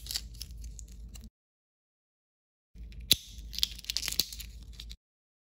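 Close-up handling of a tiny plastic doll accessory: fingernails clicking and scratching on the plastic, in two short stretches with a silent gap between. The second stretch holds a few sharp clicks.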